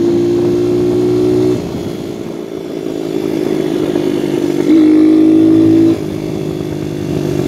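Viper 150cc dirt bike's engine under way at steady high revs. The revs drop suddenly about a second and a half in, climb back up, and hold at a loud steady pitch for about a second before dropping again about six seconds in.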